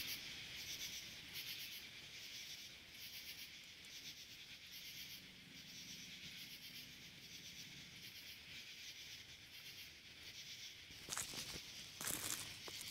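Faint, high-pitched chorus of insects shrilling with a steady pulsing beat, about two pulses a second. From about eleven seconds in, footsteps crunch and rustle on the trail over it.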